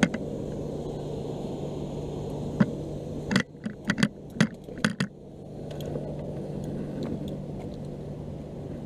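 A quick string of six or seven sharp knocks and clatters, bunched together around the middle, from a hooked catfish and fishing gear being hauled up over a metal railing and fence. Underneath is a steady low rumble with a constant low hum.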